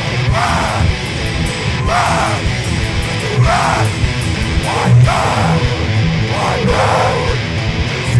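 Hard rock band playing live: distorted electric guitar over bass and drums, with a swooping figure that repeats about every one and a half seconds.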